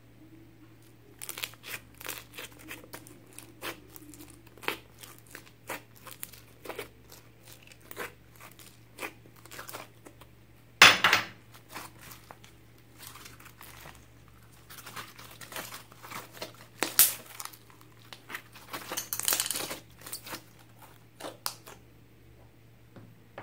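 Slime being squished and kneaded by hand in a glass dish, giving scattered sharp crackling clicks and pops, with a loud pop about eleven seconds in and a busy run of crackles near the end.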